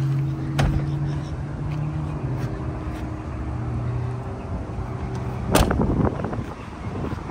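A motor's steady low hum that drops slightly in pitch about two seconds in. A sharp knock comes about half a second in, and a louder knock with a brief rattle comes about five and a half seconds in.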